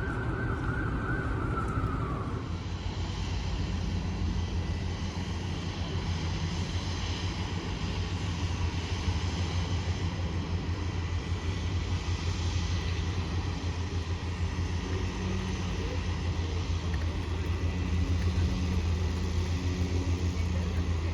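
Steady low rumble of road traffic, with a higher sound fading out in the first two seconds.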